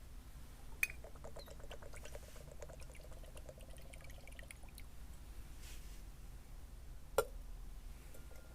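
Liquid poured into a small container for about four seconds, then a single sharp clink.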